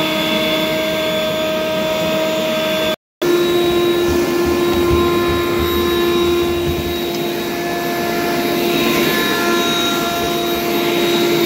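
Ryobi 40V brushless cordless leaf blower running steadily with a constant whine over the rush of air, blowing loose droppings and litter off a coop floor. The sound cuts out for a moment about three seconds in, then resumes with a slightly lower whine.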